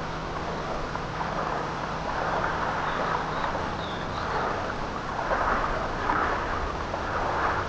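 Small waves lapping on a pebble beach: a steady wash that swells and falls back every second or so.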